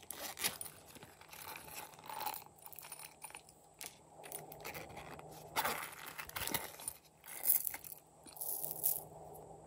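Close handling noises from small silicone bear-shaped zipper cases and plastic beads: irregular clicks, scrapes and crinkles, with louder clicks and rattles in the second half.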